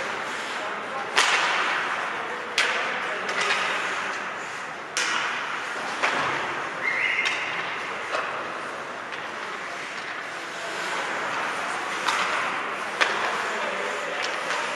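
Ice hockey play in an echoing rink: about seven sharp cracks of sticks hitting the puck and the puck hitting the boards, spread irregularly, over a steady scraping of skates on ice.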